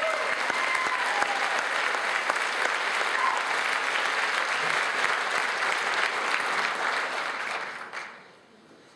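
Theatre audience applauding after a song, the clapping dying away about eight seconds in.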